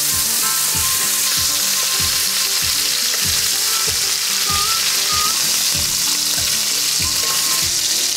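Chicken pieces searing in hot olive oil in a stainless steel sauté pan: a loud, steady sizzle as the browned pieces are turned over with tongs.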